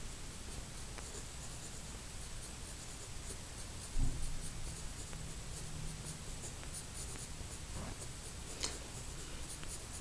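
Pencil scratching on sketchbook paper in short repeated shading strokes, with a dull thump about four seconds in.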